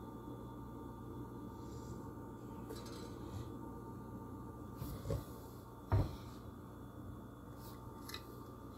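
Hand-handling noise as a small die-cast toy car is held and turned over close to a phone's microphone: faint rubbing and ticks over a steady low hum, with two soft knocks about five and six seconds in, the second the louder.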